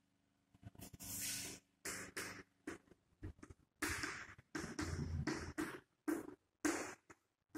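Chalk writing on a blackboard: a run of short, irregular scratching strokes and taps of the chalk against the board, some with a dull knock.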